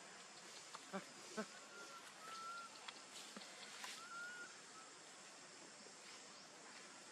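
Faint forest background with two short calls about a second in, followed by a bird's thin, held whistled notes twice, around two and four seconds in.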